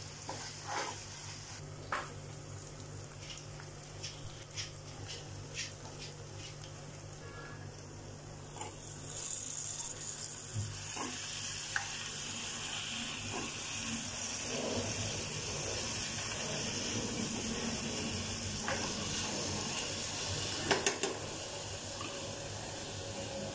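Onions, tomatoes and green chillies sizzling in oil in a non-stick frying pan, with a metal spoon clicking and scraping against the pan. About nine seconds in, the sizzling grows louder and stays steady as raw potato cubes go into the hot oil.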